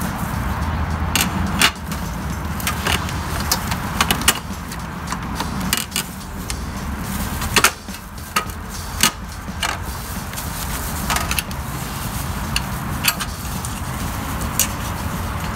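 Irregular clicks, taps and light metal clatter as the metal parts of a kerosene heater's burner and wick mechanism are handled and refitted by gloved hands, over a steady low rumble.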